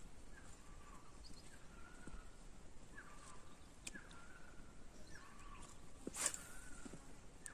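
A small animal's short call, faint and repeated about once a second. About six seconds in comes a brief whoosh as a light fishing rod is swung through a cast, the loudest sound here.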